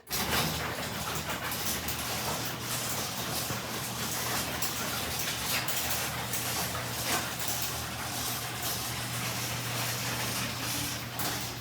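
Electric garage door opener starting suddenly and running steadily as it drives the door shut: a constant motor hum with many small rattles and clicks from the moving door.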